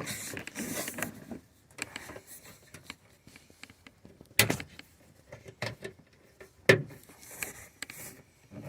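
Hands working a car door's inside-handle cable back into its sleeve: light rustling and scattered small clicks, with two sharp plastic clicks, one about halfway through and one a couple of seconds later.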